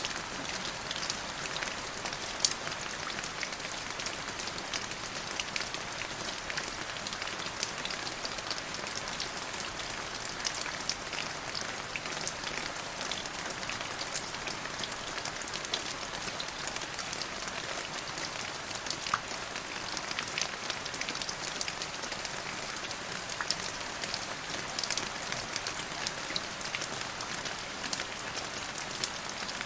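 Steady rain falling, a constant hiss dotted with many individual drops ticking, and one louder drop about two and a half seconds in.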